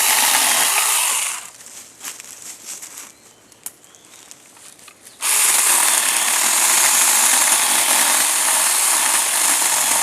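Saker 4-inch cordless mini chainsaw cutting through a small green tree trunk. It runs for about a second at the start, stops for a few seconds with only small clicks, then cuts again steadily from about halfway through.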